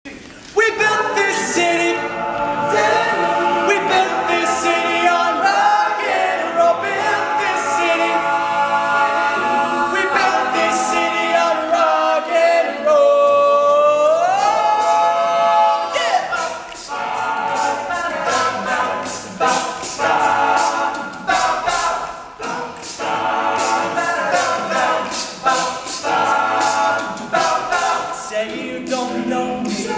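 Male a cappella group singing in close harmony, with no instruments. It starts abruptly just after the start. About halfway through, a solo voice slides up and holds a high note. Sharp percussive clicks keep a steady beat, busiest in the second half.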